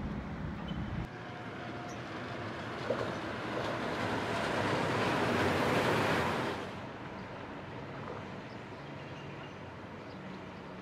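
Palm Jumeirah Monorail train running overhead on its elevated guideway: a rushing noise that builds for a few seconds and cuts off suddenly about two-thirds of the way in, leaving quieter steady outdoor noise.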